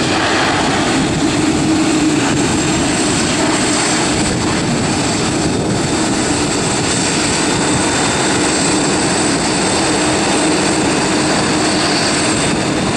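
Airbus A310's twin turbofan jet engines running at taxi power: a steady, loud jet noise with a constant high-pitched whine over a low hum.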